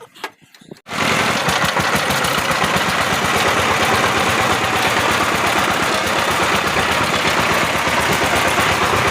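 Power tiller engine and gearbox running steadily with a fast, even beat, cutting in suddenly about a second in.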